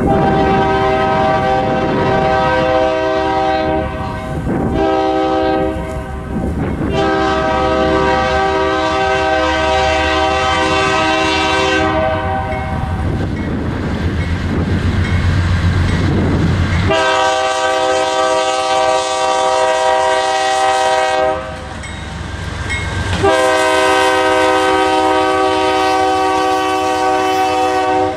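Diesel locomotive's multi-note air horn sounding a series of blasts, some short and some several seconds long, over the low rumble of the passing train. In the middle the horn stops for a few seconds, leaving the train's rumble and wheel noise, then two more long blasts follow.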